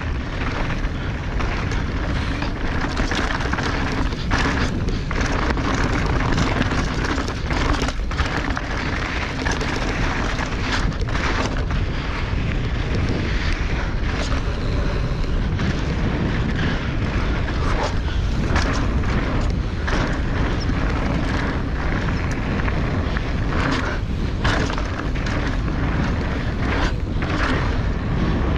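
Wind buffeting a helmet-mounted action camera's microphone as a mountain bike rides a dirt trail. Frequent short knocks and rattles come from the bike going over rough ground.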